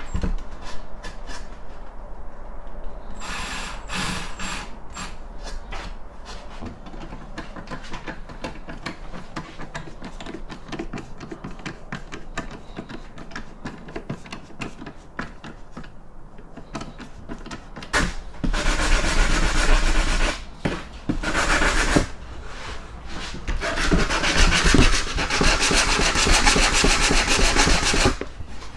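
Cordless drill-driver driving small screws into a pine frame in short runs with a thin motor whine, with small knocks of wood and tool between runs. In the last third, two long stretches of much louder rough scratchy noise start and stop abruptly.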